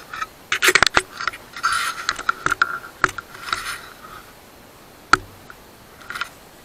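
Handling noise of a camera being set onto a tripod: a cluster of sharp clicks and rubbing in the first second, then single clicks and knocks about two and a half, three and five seconds in.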